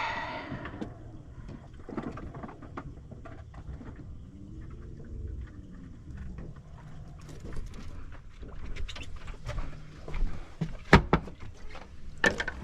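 Low steady rumble on a fishing boat with scattered clicks and knocks of tackle being handled; the sharpest knock comes about eleven seconds in.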